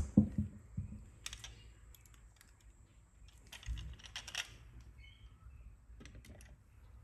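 Small clicks and taps of a diecast 1970 Dodge Charger R/T model car being handled in gloved hands, its opening doors swung open. The sound comes in short clusters: several clicks in the first second, brief rustling bursts about a second in and around four seconds in, and a few more clicks near the end.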